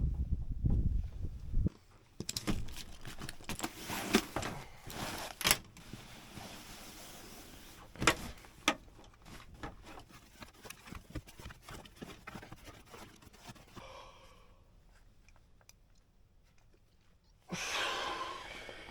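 Gear being handled: a series of clicks, knocks and thunks with short rustles. There is a low rumble in the first two seconds and a louder burst of rustling near the end.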